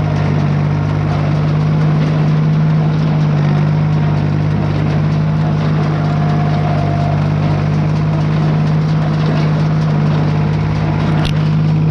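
Tractor engine running steadily under load, driving a PTO-driven small square baler, with one sharp clack near the end.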